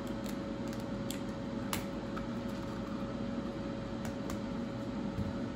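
Steady hum of an air fryer's fan running as it preheats. A few faint light clicks sound as eggs are cracked and handled over a plastic mixing bowl.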